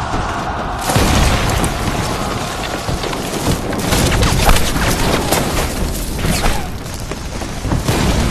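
Battle-scene explosions: a blast hits suddenly about a second in, and a dense din of further blasts follows, loudest about halfway through.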